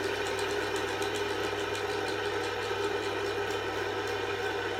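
Two fidget spinners spinning side by side, their ball bearings giving a steady whirring hum.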